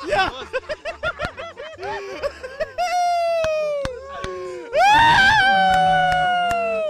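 A very high-pitched voice chattering in quick short syllables, then two long drawn-out cries, each falling slightly in pitch; the second, near the end, is the louder.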